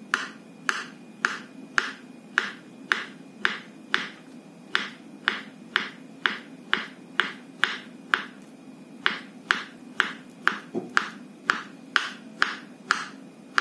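Kitchen knife slicing a peeled banana into rounds on a bamboo cutting board, the blade tapping the board about twice a second in a steady run of short knocks, with a brief pause a little past the middle.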